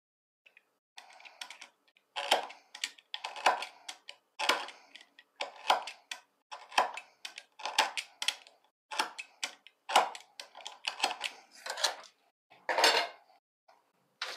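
Craft knife cutting through a wooden popsicle stick on a wooden cutting board: a run of short, sharp scraping strokes, about two a second.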